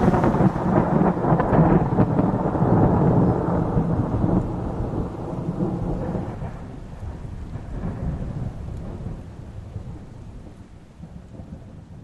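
Heavy rain with a long rumble of thunder, loudest in the first few seconds and steadily dying away toward the end.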